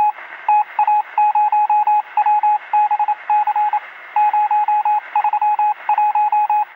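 A loud electronic beep at one high pitch, keyed on and off in a quick, irregular run of short and long beeps, like Morse code. It sounds thin and band-limited, as if over a radio, and cuts off abruptly at the end.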